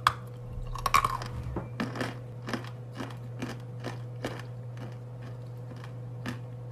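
A white slate bar (pressed edible clay) snapped off with the teeth, then chewed in a run of dry crunches about two a second that thin out near the end.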